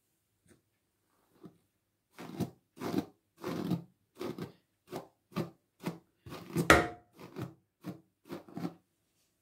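Hairbrush strokes pulled through long, slightly dampened hair: about a dozen brisk brushing rasps, roughly two a second, starting about two seconds in.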